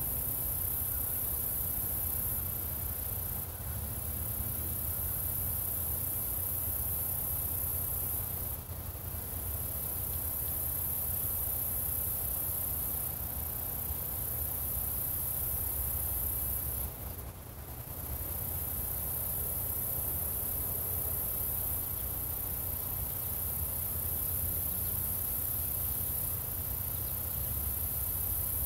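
Steady, high-pitched chorus of crickets that drops out briefly a few times, over a low rumble of breeze.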